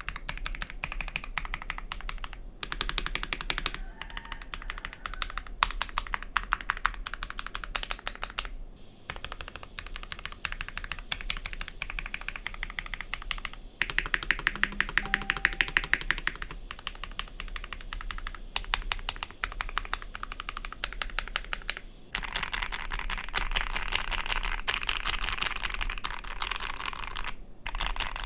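Typing on an Ikki68 Aurora mechanical keyboard with Gateron CJ linear switches: a fast, continuous stream of keystroke clacks broken by a few short pauses, denser and fuller in the last few seconds.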